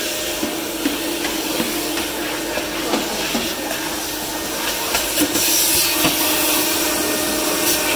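Rainbow water-filter vacuum cleaner running, a steady hum with rushing air through the hose wand as it sucks at a drawer. A few light knocks come past the middle.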